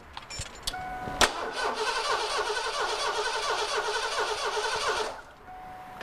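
Starter cranking the 1987 Ford F-150's V8 with the coil wire off, so it turns over without firing, for a compression test on a misfiring cylinder. A sharp click as the starter engages, then about four seconds of steady, evenly pulsing cranking that stops abruptly.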